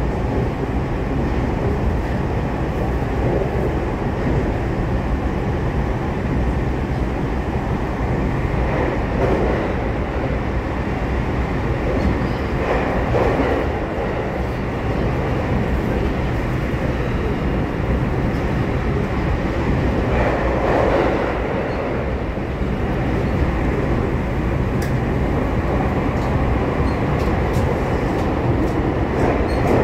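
Commuter train heard from inside the passenger car while running through a tunnel: a steady, loud rumble of wheels and running gear on the rails, swelling a few times.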